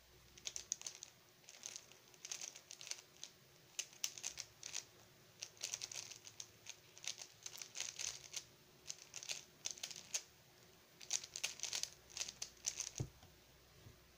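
Stickerless 3x3 speedcube being turned at speed: rapid runs of plastic clicking and clacking as the layers turn, broken by short pauses. Near the end the solved cube is set down on the table with a soft thud.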